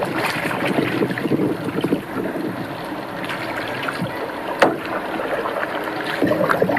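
Water splashing and lapping around a clear-water kayak as it is paddled, with one sharp knock about four and a half seconds in.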